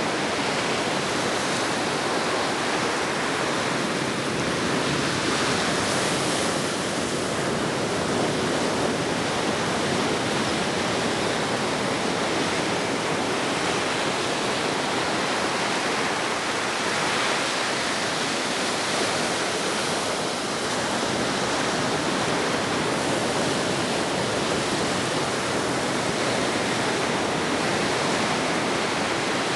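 Ocean surf: a steady, even wash of breaking waves.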